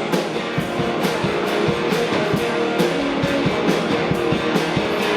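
Live rock band playing an instrumental passage: guitars over a steady drum beat, with no singing.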